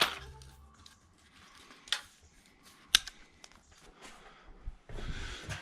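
A few sharp clicks of something being handled, one at the start and others about two and three seconds in, with some rustling near the end.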